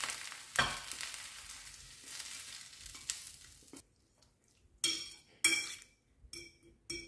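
Hot oil and vegetables sizzling as sautéed purslane, potato and onion are scraped from a frying pan into a bowl of beaten eggs, with a few scrapes of a wooden spatula. The sizzling stops abruptly about four seconds in. A metal fork then clinks against the bowl about five times as the mixture is stirred.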